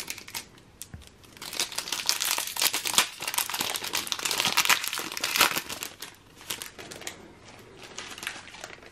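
Foil booster pack of Yu-Gi-Oh! Ghosts from the Past cards crinkling as it is torn open by hand. It is loudest from about a second and a half in to about six seconds, then fades to fainter rustling.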